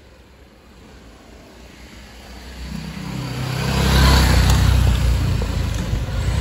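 BMW GS motorcycle riding past close by, its engine growing louder as it approaches, loudest about four seconds in, then easing off only slightly as it moves away.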